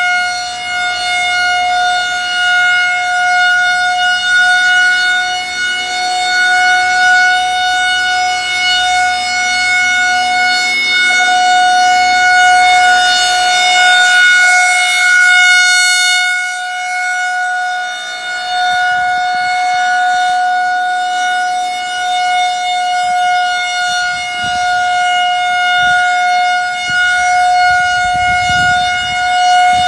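Federal Signal 2001-130 rotating electromechanical siren sounding a steady single-tone full alert. Its level swells and dips as the rotating horn sweeps around, and it is brightest about halfway through.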